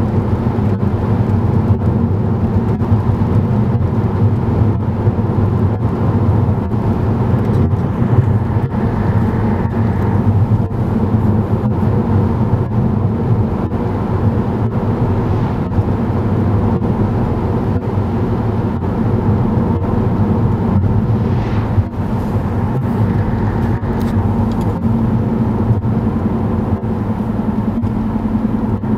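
Steady road and engine noise inside a VW Passat B7's cabin while cruising at road speed, mostly a low tyre rumble with a hum.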